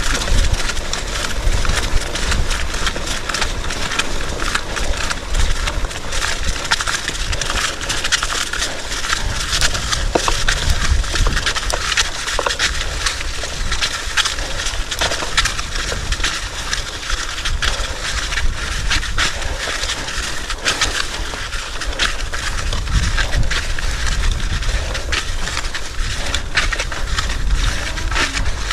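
Bicycle ridden over a rough, muddy trail: continuous crunching and crackling of tyres on the ground with the bike rattling, and wind rumbling on the microphone.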